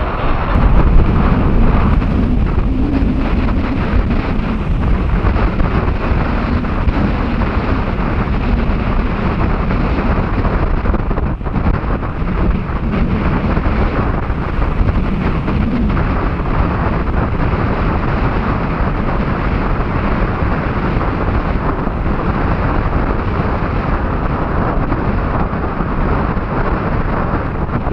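Strong wind buffeting the microphone, with the low jet rumble of a Boeing 747-400's engines under it.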